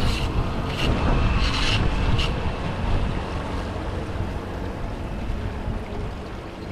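Floodwater rushing steadily down a cleared storm drain, with a low rumble and four short, sharp sounds in the first couple of seconds.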